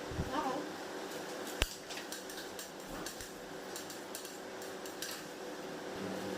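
Light clinks and taps of metal kitchen utensils, with one sharp click about a second and a half in.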